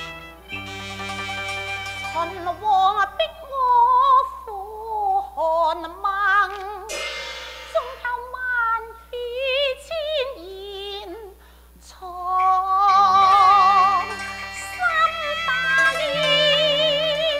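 Cantonese opera singing: a female voice sings a slow, ornamented line with wide vibrato over a traditional instrumental ensemble, with a cymbal crash about seven seconds in. The voice stops and the instruments drop out briefly near twelve seconds, then the ensemble resumes with sustained melody notes.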